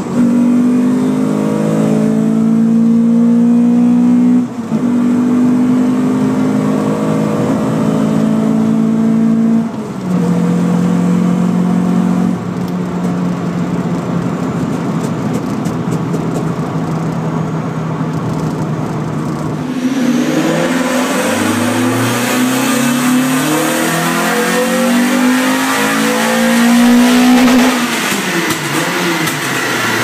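Renault Clio 182's 2.0-litre four-cylinder engine, with a home-made cone-filter induction kit, heard from inside the cabin under load. The engine note drops sharply twice in the first ten seconds, as at gear changes, then holds steady; in the last third it rises and falls repeatedly as the revs climb and drop.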